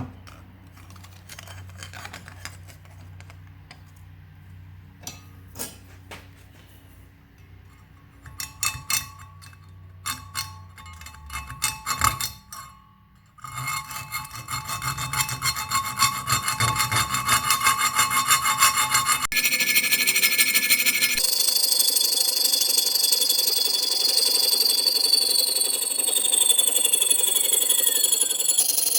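Scattered clicks of tools being handled, then fast rasping strokes of a hand tool scraping aluminum plate. Near the end comes a louder steady whir with slowly falling tones.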